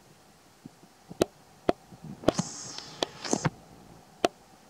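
A handful of sharp clicks or knocks, five spread out, with a short hissing rustle in the middle.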